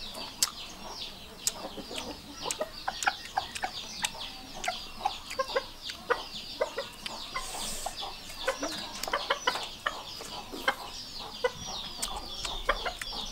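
Chickens clucking, with short low clucks over a steady stream of high, quick, falling chirps.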